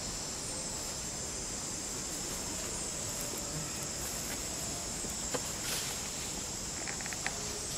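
Steady, high-pitched drone of forest insects, with a short downward-sliding note about every two and a half seconds. A few faint clicks of dry leaves near the end.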